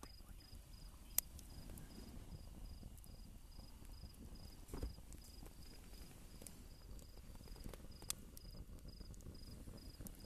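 Crickets chirping in an even, steady pulse, about two to three chirps a second, with sharp pops from the wood burning in a rocket stove, the loudest about a second in and another near eight seconds.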